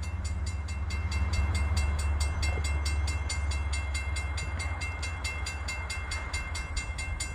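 Railroad grade-crossing bell ringing with rapid, evenly spaced strikes, signalling an approaching train. Under it runs the steady low rumble of the returning freight train.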